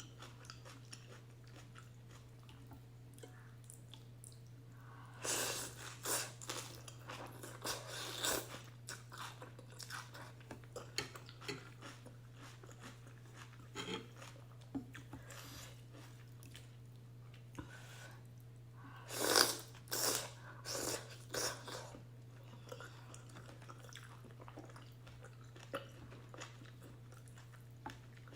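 Chewing and mouth sounds of someone eating ramen noodles with beef and egg, in two louder spells: about five seconds in and again near twenty seconds, with quieter chewing clicks between.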